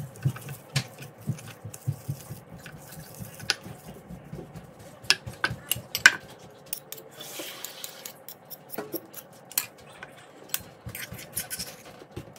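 Marble pestle mashing garlic and butter in a marble mortar, soft repeated thuds for the first two seconds or so. Then scattered sharp clicks and knocks as a ceramic bowl is set on the cutting board and a metal spoon scrapes and taps the paste out of the mortar.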